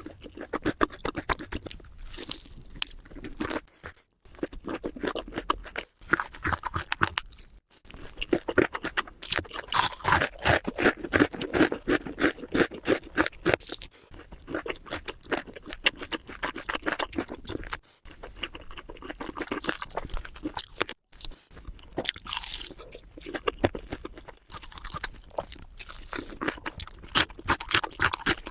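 Close-up eating sounds: crunchy food being bitten and chewed, a rapid run of crackly crunches and chews with a few brief breaks.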